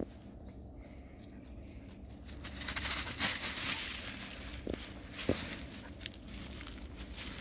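Footsteps rustling and crunching through dry fallen leaves and grass, louder for a couple of seconds near the middle.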